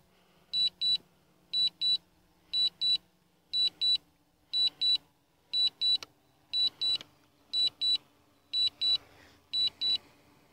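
High-pitched electronic beeps in pairs, about one pair a second: the DJI Phantom 3 remote controller's alert while the drone is in Return-to-Home and landing on its own.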